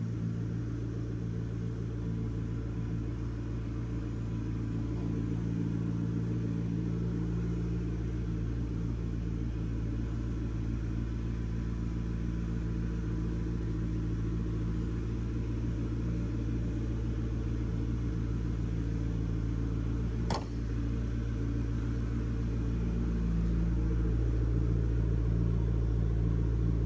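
McLaren MP4-12C's twin-turbo V8 idling steadily, with one sharp click about twenty seconds in.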